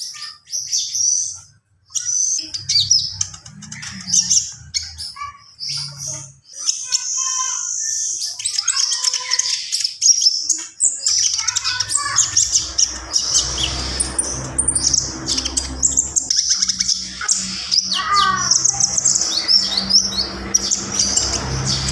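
Konin songbird singing in full, a dense run of rapid chirps, trills and quick rising and falling whistles, packed with phrases mimicked from other birds. A steady low hum joins about halfway through.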